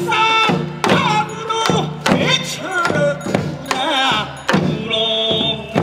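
Korean traditional folk music from a pungmul band: drum strikes at a loose beat under a high, wavering melodic line.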